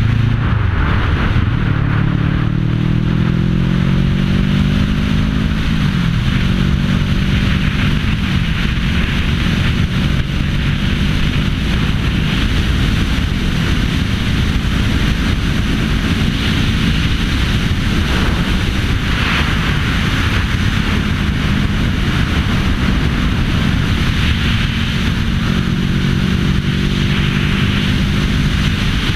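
Sport motorcycle riding at road speed, with heavy wind rush on the camera's microphone over the engine. The engine pitch climbs over the first few seconds, drops at a gear change about six seconds in, climbs briefly again, then holds steady at cruise.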